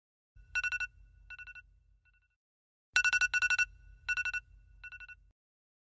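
Smartphone alarm ringing with a trilling telephone-bell tone: two rounds of quick trills, each round starting loud and fading, with a low buzz underneath. It stops a little before the end.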